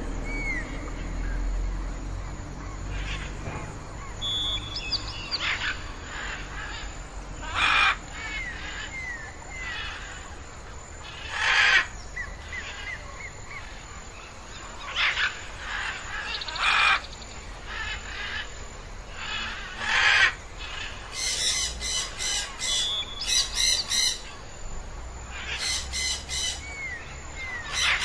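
Birds calling: loud short calls every couple of seconds, with faint thin whistled notes in between. Fast runs of repeated notes come in the last third.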